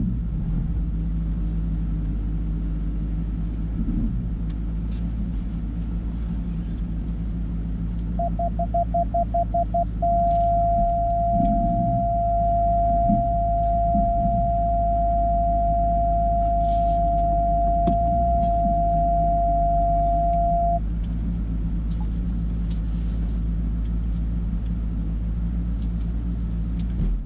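2019 Ram Power Wagon's 6.4-litre HEMI V8 running low and steady, heard inside the cab while driving slowly. About eight seconds in, an electronic warning beep sounds as a quick run of beeps that runs into one steady tone lasting about ten seconds.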